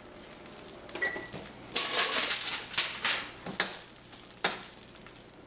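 Aluminium foil crinkling as it is pulled off a glass bowl, then metal kitchen tongs clicking against a baking sheet as roasted green chilies are picked up, with a few sharp knocks.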